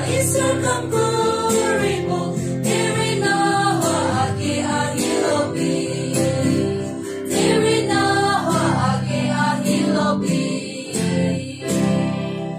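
A small mixed group of young voices singing a hymn together, several voices carrying the tune at once.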